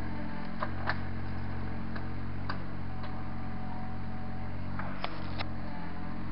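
Takeuchi mini excavator's diesel engine running steadily, with a few sharp clicks and knocks from the machine working, the loudest about a second in and again about five seconds in.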